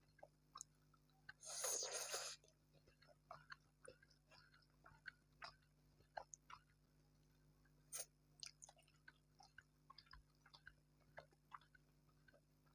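Close-miked eating sounds: a person chewing, with many small wet mouth clicks, and one louder noisy burst lasting under a second about a second and a half in.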